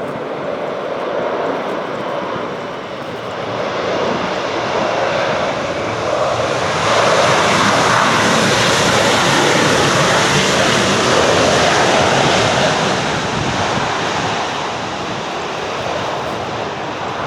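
Embraer 190 jet airliner's engines passing close on approach, the noise swelling to a peak about seven seconds in and easing off near the end.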